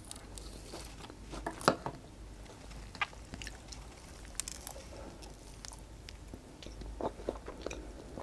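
Close-miked biting and chewing of a crispy fried popiah (spring roll), with scattered sharp crunches, the loudest about two seconds in.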